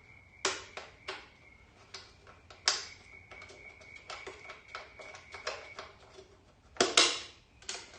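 Metal clinks and knocks from tools and loosened engine tinware and bolts being handled, with a run of light, rapid ticks in the middle and the loudest knock about seven seconds in.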